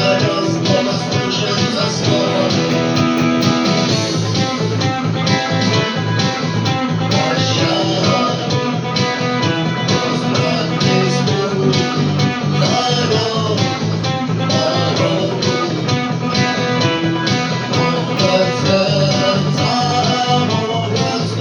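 Music with a plucked guitar, playing steadily.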